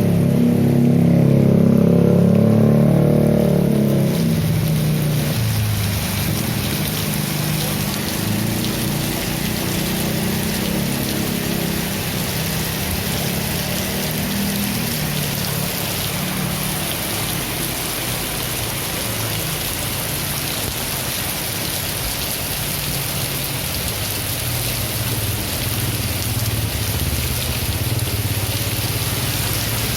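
Steady rain falling: a dense, even hiss that fills in over the first few seconds and then holds. Under it, a low rumble that is loud at first fades away over the first quarter or so.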